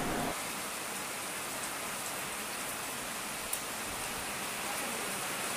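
Steady rain: an even hiss with no rhythm, and a single faint tick about three and a half seconds in.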